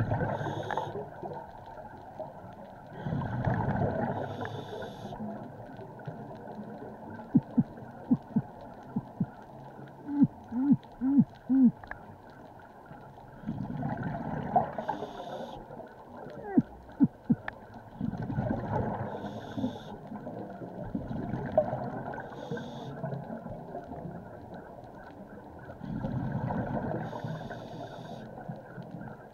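Underwater recording of a scuba diver's regulator breathing: hissing inhalations and bursts of exhaust bubbles every few seconds. In the middle come short, squeaky pitched pips, several in a row.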